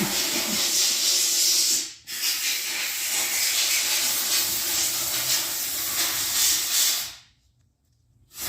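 Pressurised gas hissing steadily. It breaks off briefly about two seconds in, then cuts off sharply near the end.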